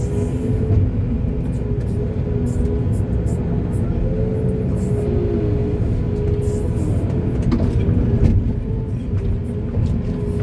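Diesel engine of heavy earth-moving machinery running steadily with a deep rumble, with a tune of background music over it.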